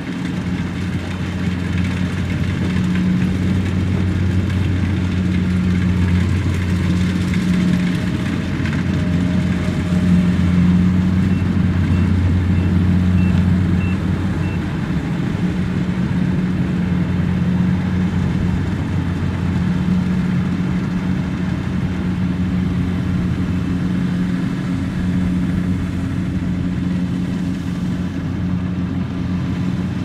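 Kubota DC-70 combine harvester's diesel engine running steadily under load while it cuts rice, a constant low drone that grows a little louder midway as the machine passes close.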